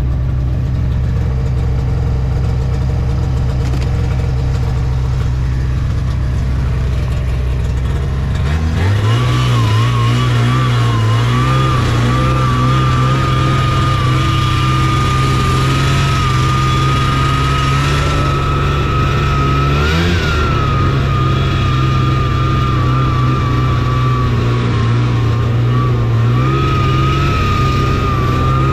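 Taiga Varyag 550 snowmobile's two-stroke engine running while riding. About eight seconds in it picks up in pitch and a steady high whine joins it, wavering slightly, with a brief rise in pitch about twenty seconds in.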